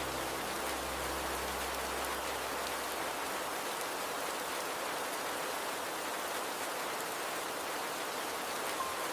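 Steady rain falling, an even hiss mixed with flowing water. Soft held music tones underneath fade out in the first few seconds.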